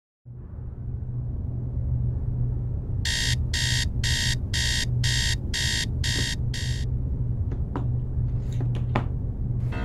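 Smartphone alarm beeping in a regular pattern, about two pulses a second, for about four seconds, then cut off. A few light taps follow, over a steady low hum.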